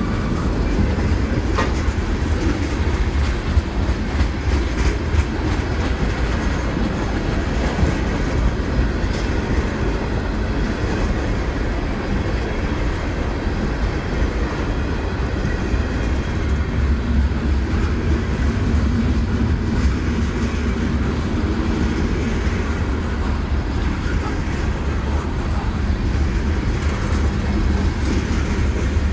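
Freight cars of a long CSX mixed freight train, tank cars and covered hoppers, rolling past: a steady, heavy rumble of steel wheels on rail, with a few sharp clicks from the wheels early on.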